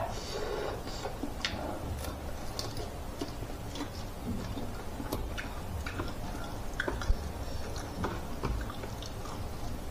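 A person chewing food and eating by hand, with many scattered small clicks and wet mouth noises.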